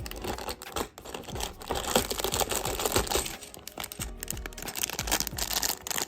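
Packaging crinkling and small plastic pieces clicking as they are handled, loudest from about one and a half to three and a half seconds in.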